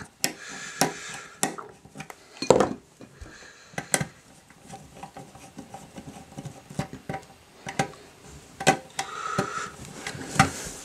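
Screwdriver working the screws of a terminal block to clamp mains wires: scattered sharp clicks, short scrapes and small knocks of metal on plastic.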